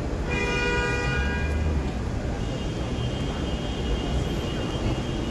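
Car horn honking in one blast of about a second and a half, over a low rumble of city traffic. About halfway in a thinner, higher steady tone starts and holds on.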